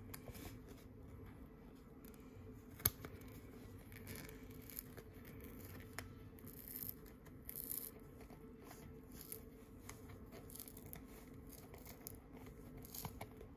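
Faint, scattered scratching and tearing of a 2021 Topps Rip trading card's paper layer as it is slowly picked and peeled open by fingernail, with a sharp tick about three seconds in.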